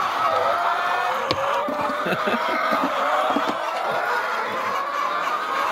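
A flock of laying hens clucking, many calls overlapping in a steady chorus.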